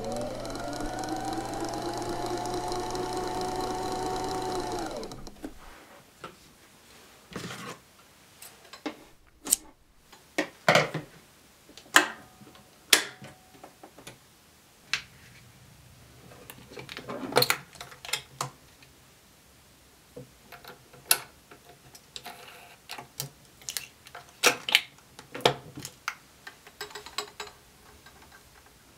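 Electric sewing machine motor spinning up with a rising whine and running steadily for about five seconds, with the thread being wound at the top of the machine as on its bobbin winder, then stopping. Afterwards, scattered clicks and knocks of the machine's plastic parts and the thread spool being handled as it is threaded.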